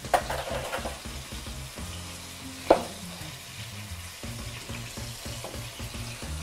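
Sausage browning in a frying pan, sizzling steadily. A single sharp knock comes a little before the middle, and near the end a knife slices a red onion on a wooden cutting board in small taps.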